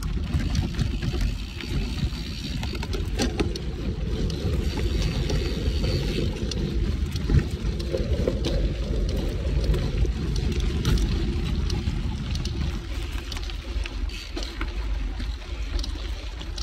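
Cervélo Aspero gravel bike rolling fast down a dirt singletrack on 650b wheels with 47 mm tyres: a steady low rumble of tyres on dirt and leaves, broken by scattered sharp clicks and rattles as the bike goes over roots and bumps.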